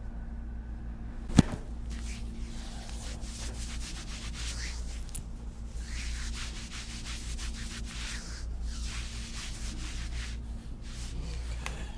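A single sharp crack about a second and a half in: an upper thoracic spinal joint popping during a chiropractic adjustment. It is followed by repeated rubbing of hands over the back and clothing.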